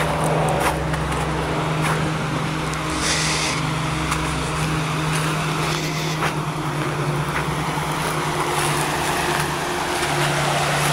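Steady rushing of a shallow mountain stream over rocks.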